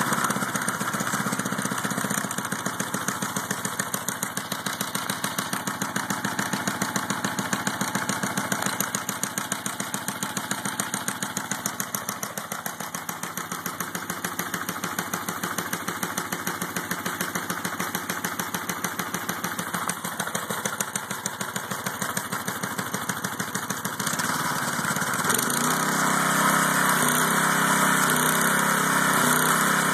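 MTD edger's 3.5 hp Briggs & Stratton single-cylinder four-stroke engine running steadily, warming up after a cold start and running well again now that a stuck exhaust valve has been freed. About 25 seconds in it picks up and runs louder.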